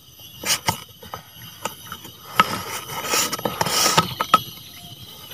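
Insects chirring steadily in a high, even drone. Over it come scattered sharp clicks, and a rustling stretch of about two seconds starting near the middle.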